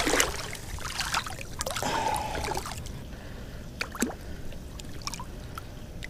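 Shallow water splashing as a snook is held in the water by hand and released, with a larger splash at the start and another about two seconds in, then scattered small drips and splashes.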